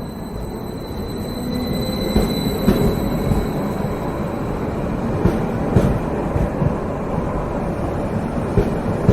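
Train departing: a low rumble that builds over the first two seconds, with a steady high whine and irregular wheel knocks over the rail joints.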